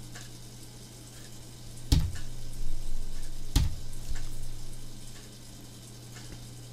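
Two sharp knocks about a second and a half apart, with a rustling noise around and after them, over a steady low electrical hum: handling noise at the desk near the microphone.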